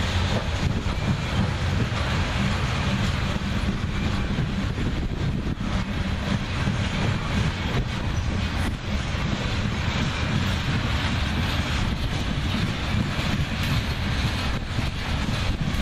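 Freight train rolling past: a steady rumble of steel wheels on rail, with many faint clicks of wheels crossing rail joints.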